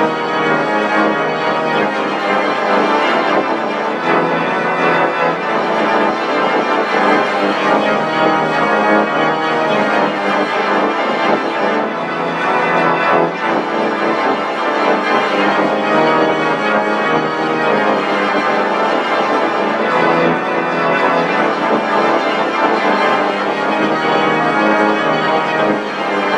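The 'Kormulator V12' sound effect: a dense, organ-like electronic tone with many pitches sounding at once, held steadily without a break.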